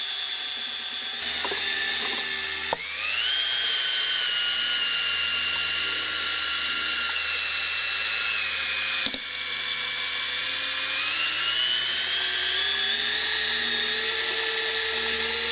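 Cordless drill motor whining as it spins a Vortex Power Mixer paddle in a 5-gallon pail of paint. Its pitch rises about three seconds in and then falls slowly. After a short break near nine seconds it climbs steadily again.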